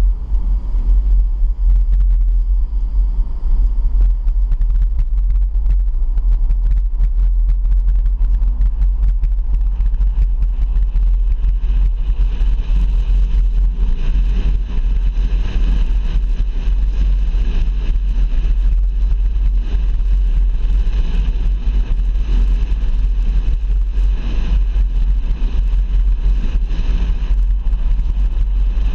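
Car driving along a highway: a steady low rumble of road and wind noise. About twelve seconds in, a louder hiss joins it and holds.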